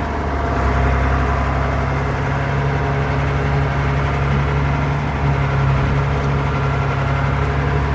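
John Deere 4030 tractor's six-cylinder diesel engine running steadily, a little louder from about a second in.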